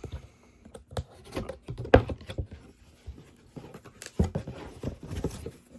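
Speaker packaging being opened and handled by hand: irregular scrapes, taps and rustles, with a sharp knock about two seconds in.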